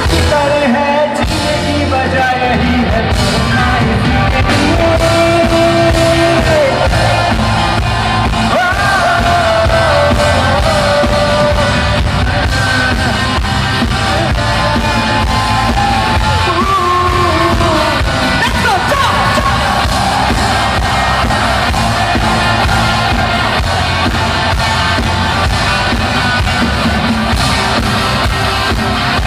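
Live band playing a song with a lead singer, with shouts and yells over the music.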